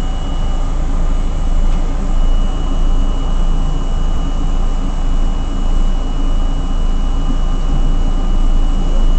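An R32 New York subway car running, heard from on board: a steady loud rumble of wheels and motors with a thin, steady high whine over it.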